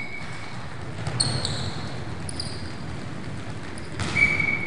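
Athletic shoes squeaking and feet thudding on a sports-hall floor during defensive side-slides: a few short high squeaks, one about a second in and a longer one near the end, over the muffled patter of footsteps.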